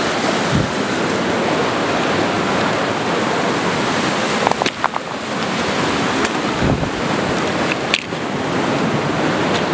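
Fast mountain creek rushing over rapids: a steady, loud rush of whitewater. A few sharp clicks of stones underfoot on the gravel bank.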